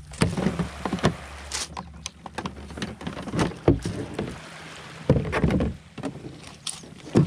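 Irregular knocks and clatter of fishing gear and a paddle being handled against a sit-on-top fishing kayak, a ProFish 45, as it is rigged.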